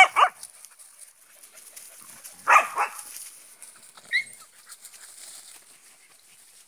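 Samoyeds barking: a quick run of three high barks at the start and two more about two and a half seconds in, then a short high yelp about four seconds in.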